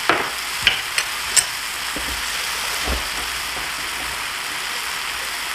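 Stir-fried udon with vegetables and seafood sizzling in a frying pan over high heat, a steady hiss. A few light clicks come in the first second and a half.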